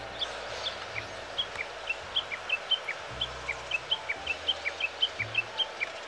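Japanese bush warbler (uguisu) giving a rapid run of short, sharp chat calls, several a second, some dropping in pitch. These are alarm calls: the bird is wary of something.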